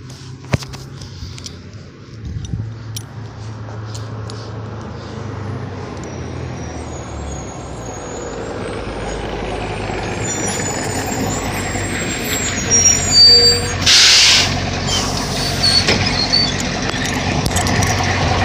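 School bus engine rumbling as the bus pulls up, growing louder, with brief high squeaks and then a sharp hiss of the air brakes about fourteen seconds in as it stops.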